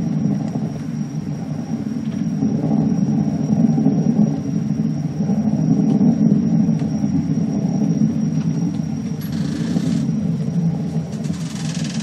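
Steady low rumble of a rocket climbing after launch, from archival launch footage heard through loudspeakers. There is a brief hiss about nine seconds in.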